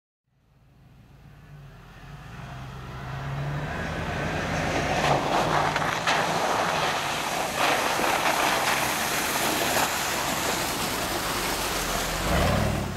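Hummer 4x4 driving through mud and snow, its engine running with a steady low hum under the noise of the tyres churning and spraying. The sound builds over the first few seconds and swells as the truck passes close by near the end.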